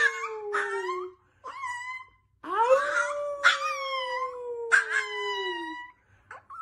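A puppy howling in long drawn-out calls, each rising quickly and then sliding slowly down in pitch. One howl trails off about a second in, a brief call follows, then another howl of about three seconds, and a new one starts near the end.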